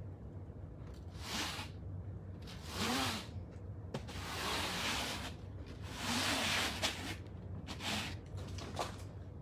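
Broom sweeping across foam floor mats: a series of short brushing swishes, about six, at uneven intervals.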